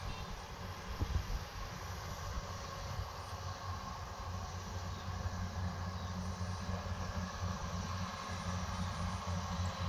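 Rice combine harvester running steadily as it cuts through the rice, a continuous low engine hum under a haze of machine noise.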